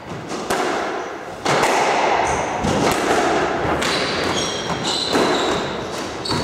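Repeated thuds of a squash ball off the court walls and floor, with short high squeaks of court shoes on the hardwood floor, echoing in the enclosed court.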